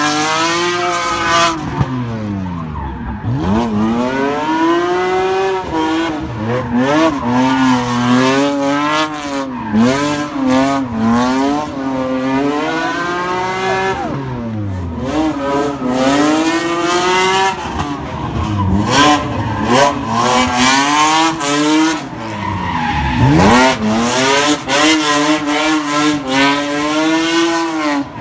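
BMW E36 with a swapped S54 3.2-litre straight-six drifting, the engine revving up and dropping back over and over as it holds the slide, with the tyres squealing.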